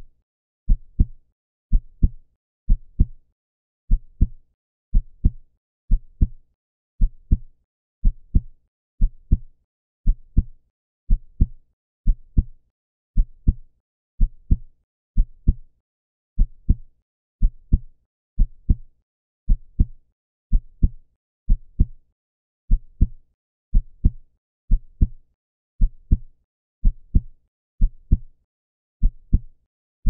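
Human heartbeat sound effect beating steadily at 60 beats a minute. Each beat is a close pair of low thumps, lub-dub, with silence between beats.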